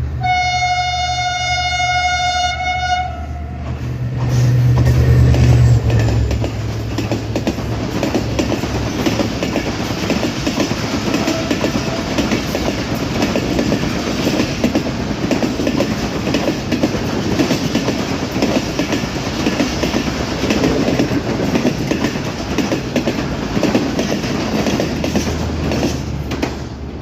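Train horn sounding one long, steady blast of about three and a half seconds. Then the train runs on with a steady rumble, its wheels clattering over the rail joints.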